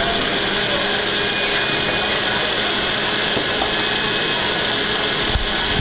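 Commercial kitchen exhaust hood fans running with a loud, steady rushing noise, with a few faint clicks of knives and utensils on the prep table.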